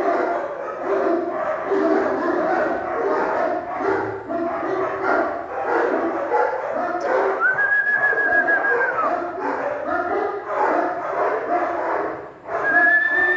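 Great Dane puppy whining and barking over a jumble of people's voices, with two long held whistle notes, one about halfway through and one near the end.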